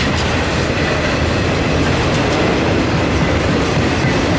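Enclosed autorack freight cars rolling past close by: a loud, steady rumble of steel wheels on rail, with faint knocks over the rail joints.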